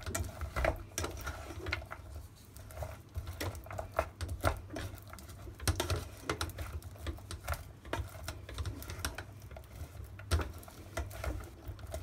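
Wooden spatula stirring mixed nuts through hot sugar syrup in a nonstick saucepan: irregular scraping and quick clicks of nuts knocking against the pan as they are coated in the syrup for nut brittle.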